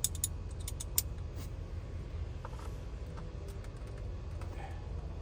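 A quick run of light clicks and taps from handling a screwdriver and Torx bit, mostly in the first second and a half, over a steady low hum.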